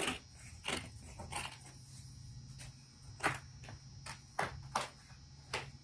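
Faint, scattered rustles and light clicks of hands at work, about eight in all, over a steady low hum.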